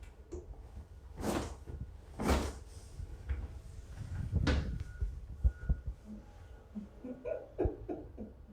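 Sounds of a patient being moved on a chiropractic treatment table: three brief swishing rustles, then a few short soft knocks.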